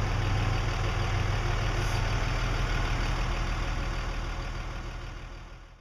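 A vehicle engine idling steadily, a low even hum that fades away near the end.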